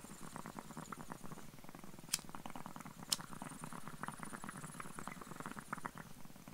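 Water bong bubbling in a dense, rapid gurgle as smoke is drawn through the water, with two sharp clicks about two and three seconds in.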